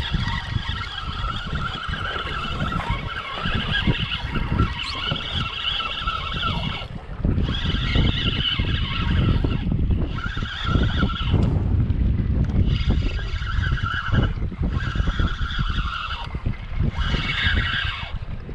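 Spinning fishing reel whirring in spurts of a second or two, with short breaks between, as a hooked fish is fought. Wind and water rumble underneath.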